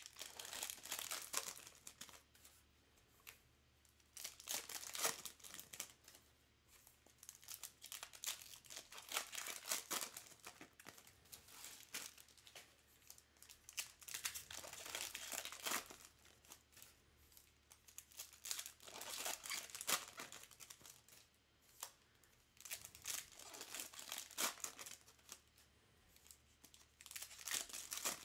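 Trading-card pack wrappers being torn open and handled, in bursts of crackling every few seconds with short quiet gaps between.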